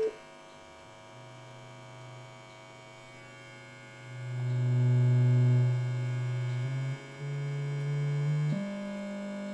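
Steady low test tones from a signal generator played through a rebuilt tube amplifier, stepping up in pitch several times and getting much louder about four seconds in. Under them runs a constant buzz, which the builder puts down to the tube heater filaments more than anything.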